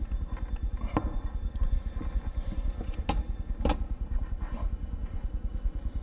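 Hand tools clicking and clinking as they are handled on a workbench: one click about a second in and two sharper ones a little past three seconds, over a steady low rumble.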